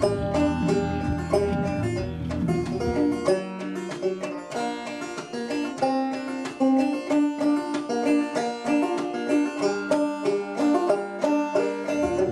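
Instrumental background music with quick picked string notes, plucked-banjo style. The bass drops out about three seconds in and comes back near the end.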